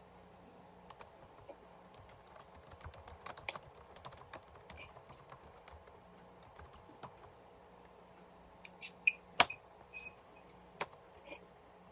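Intermittent typing on a computer keyboard: scattered key clicks, a loose run of taps a few seconds in, and a few sharper, louder clicks near the end.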